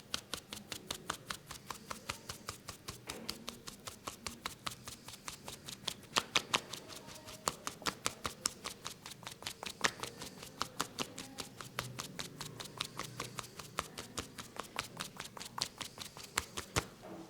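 Hands tapping rapidly and rhythmically on a person's head during a head massage, about five or six light slaps a second, stopping near the end.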